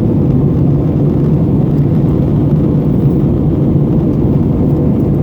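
Steady low cabin drone inside an Airbus A321neo, from its CFM LEAP-1A engines and the airflow, with a faint steady hum in it and no breaks or changes.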